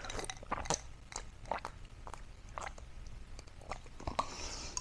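A person drinking cold water from a glass, heard close on a clip-on microphone: a string of soft, irregular swallowing and mouth clicks.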